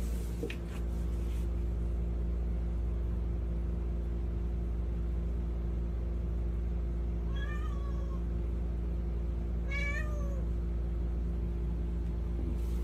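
Domestic cat meowing twice, two short calls a couple of seconds apart, each rising and falling in pitch, over a steady low hum.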